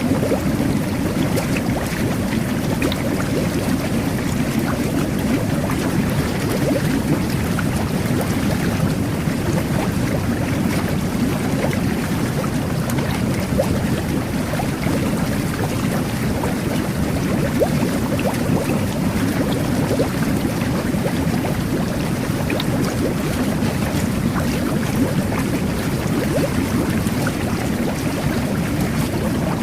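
Jet bath (whirlpool bath) water jets churning and bubbling steadily, a constant low rushing with a fine crackle of bursting bubbles.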